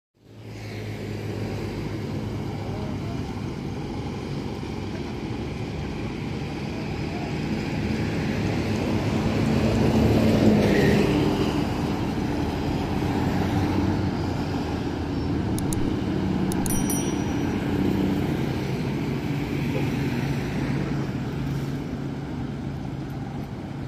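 Bus engines and road traffic. The noise swells to its loudest about ten seconds in as a bus drives past, then a steady engine hum carries on.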